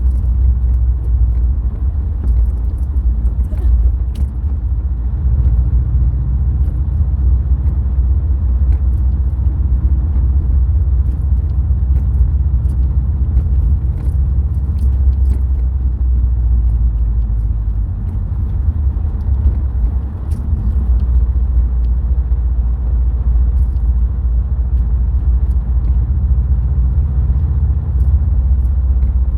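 Subaru WRX STI on the move, its turbocharged flat-four engine and tyres making a steady low rumble, with a few faint clicks on top.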